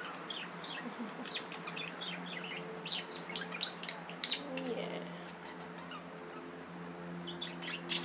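Pet budgerigars chirping in quick, short, high twitters. The chirps come thickest in the middle and pick up again near the end, over a faint steady hum.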